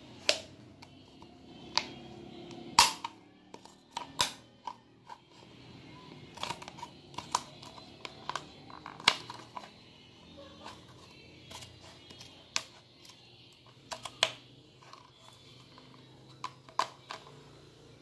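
Scissors snipping through a thin plastic cup-noodle container: a string of sharp, irregular snips and clicks, about one a second.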